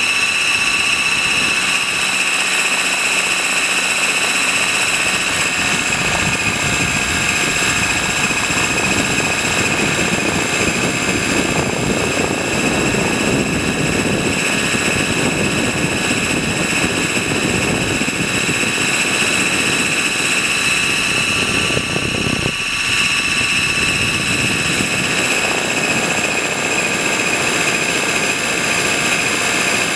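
Align T-Rex 600 RC helicopter heard from a camera mounted on its own landing skid: a steady high-pitched whine from its drivetrain over the rush of rotor wash, which swells after a few seconds and dips briefly near the end.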